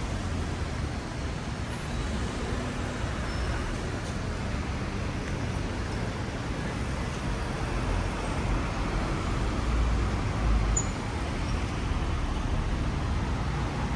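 Steady city street traffic: the even rumble and hiss of cars and other vehicles passing, with no single event standing out.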